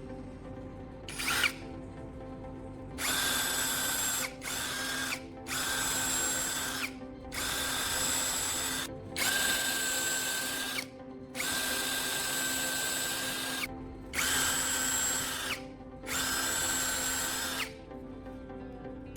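Electric drill running in a string of bursts of one to two seconds with short pauses between, its motor whine steady through each burst, over background music.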